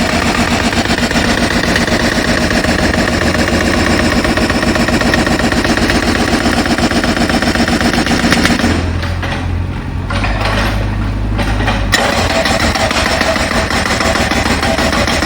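Pneumatic jackhammer breaking up the ground, a loud, continuous rapid hammering. It stops for about three seconds, leaving a low engine hum, then starts again abruptly about twelve seconds in.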